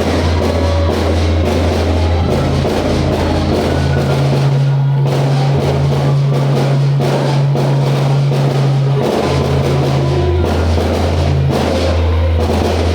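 Loud music with a heavy bass line and a steady drum beat.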